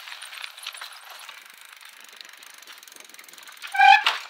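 Bicycle freewheel ratcheting in a rapid, even run of fine ticks as the wheel coasts. Near the end a short, loud pitched ring cuts in over it.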